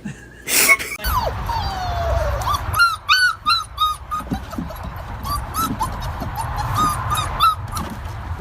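Dog whining and yipping: a long falling whine, then a run of short rising yips, about four a second, that continues more sparsely.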